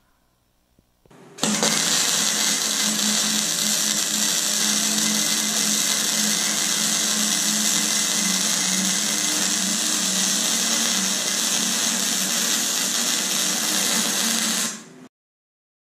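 Flux-core wire-feed welding arc from a Chicago Electric Flux 125 welder converted to DC output, burning as one continuous steady sizzle with a low hum underneath. It starts about a second and a half in and stops shortly before the end.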